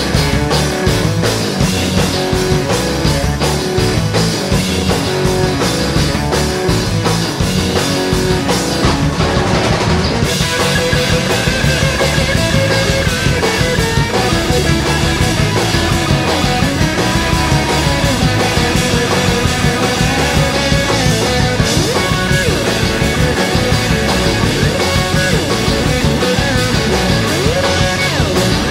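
Live rock band playing: electric guitars, bass guitar and drum kit, continuous and loud.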